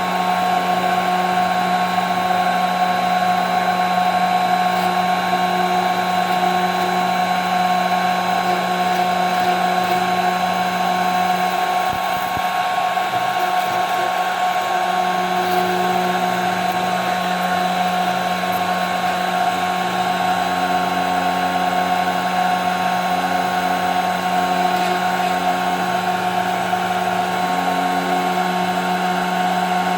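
CNC router spindle running at speed, a steady whine with a noisy hiss, machining 5 mm plexiglass. The low hum briefly eases about twelve seconds in, then returns.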